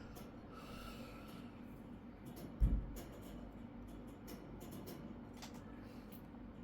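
Faint scattered clicks and ticks of a small screwdriver driving the screw that holds a laptop's Wi-Fi card, over a steady low hum, with one low thump a little over two and a half seconds in.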